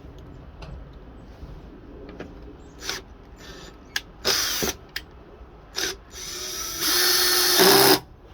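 Power drill-driver driving screws in. It runs in a few short bursts, then once for about two seconds near the end, getting louder before it stops abruptly.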